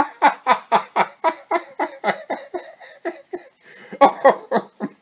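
A man laughing heartily in a quick run of short 'ha' bursts, about four a second, with a short pause for breath about three seconds in and a louder burst just after.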